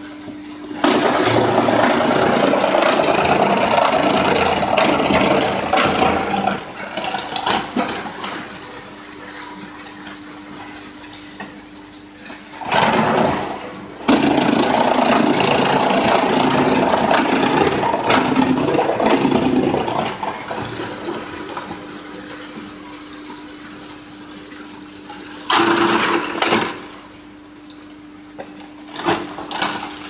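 Wood pallet shredder running with a steady hum, breaking into loud shredding noise as pallets are fed in and chewed up: a long spell starting about a second in, another through the middle, and two short bursts near the end.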